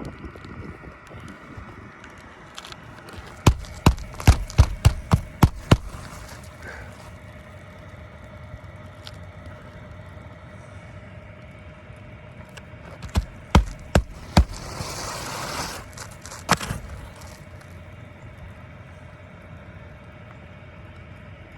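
Hammer blows on a shingled roof during a shingle repair: a quick run of about seven strikes, four more strikes some ten seconds later, then a short burst of hiss and one last strike.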